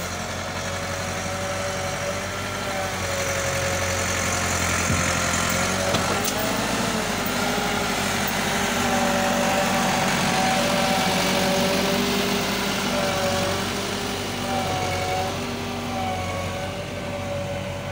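Massey Ferguson tractor's diesel engine running under load as it hauls a loaded sugarcane trolley over a rough dirt track. It grows louder as the tractor passes close by, loudest a little past the middle, then fades slightly.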